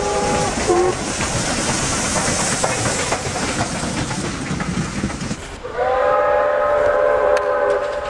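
Steam locomotive chime whistle, several notes sounding together, cuts off half a second in and is followed by a short lower toot. Then the train runs with hiss and clatter for about five seconds before another chime whistle blows, its pitch rising slightly at the start and then holding steady.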